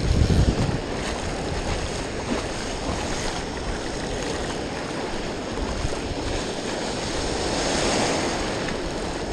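Ocean surf washing and breaking, with wind buffeting the microphone in the first second; the wash swells louder about eight seconds in.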